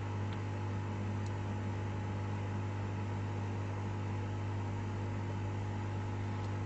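Steady electrical machine hum with a low mains-like drone and a faint hiss, plus a few faint small clicks.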